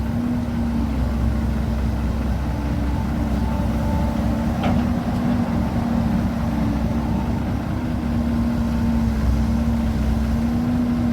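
Vehicle engine running steadily at an unchanging pitch, with a constant low rumble and hum.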